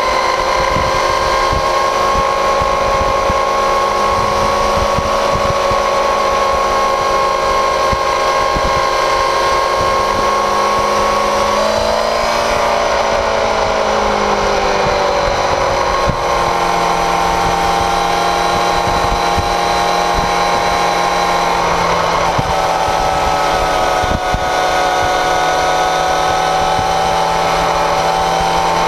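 Motorcycle engine running at road speed, heard from beside the rear wheel with wind buffeting and tyre noise. The engine note shifts about twelve seconds in and settles at a different pitch a few seconds later.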